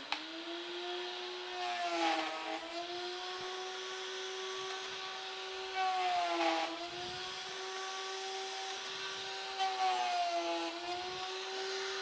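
Table-mounted router coming up to speed, then running steadily with a high whine. Its pitch sags and a cutting noise rises three times as the straight bit cuts the pins of a half-blind dovetail into a board pushed flat across the table.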